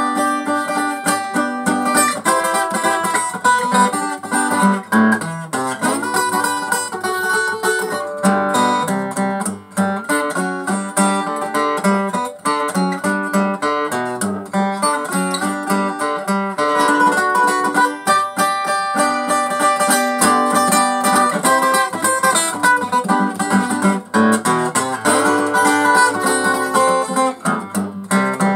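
Takamine EF360S-TT steel-string acoustic guitar played solo in a blues, a steady run of picked notes and chords with a jangly tone, on a guitar with cracked sides.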